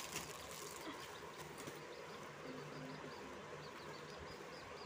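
A young chick peeping faintly and steadily, short high peeps about three a second, starting about a second in.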